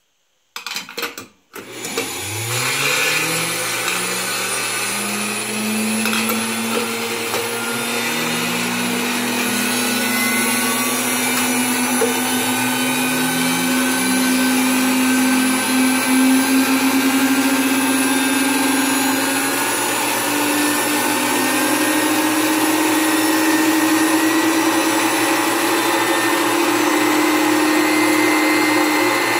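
Vintage Hamilton Beach three-spindle milkshake mixer starting up: after a short metallic clatter about a second in, its spindle motors come on one after another, about a second and a half, eight and thirteen seconds in, each whining up in pitch. They then run together as a steady hum that creeps slowly higher.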